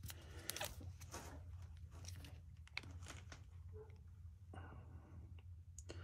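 Faint handling noises of a new blower-motor run capacitor: scattered clicks and rustles as it is turned in the hands and multimeter test leads are clipped onto its terminals, over a low steady hum.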